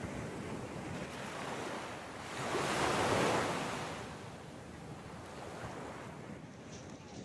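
Ocean surf breaking and washing up a sandy beach, a steady rush with one wave swelling louder about three seconds in.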